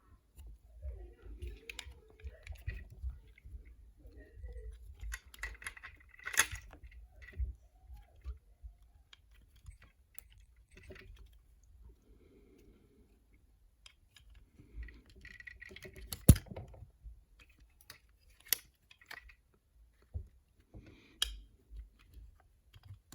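Hard plastic parts of a Transformers Optimus Prime action figure being handled and clicked into place: scattered clicks and rustling, with one sharp click about sixteen seconds in.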